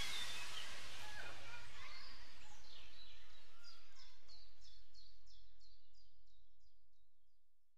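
Birds chirping over a steady hiss of background noise, with a run of quick, repeated chirps about three a second in the middle. Everything fades out to silence near the end.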